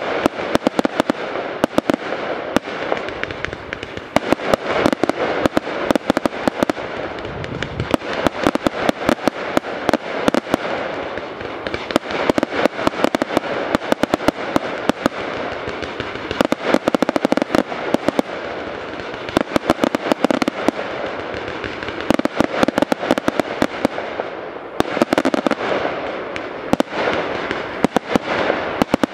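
Fireworks display: a dense, near-continuous barrage of aerial shell bursts and sharp bangs, many in quick succession, over a constant hissing crackle.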